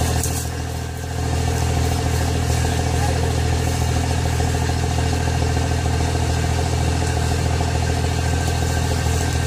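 Engine running steadily at a constant speed, dipping briefly just before a second in.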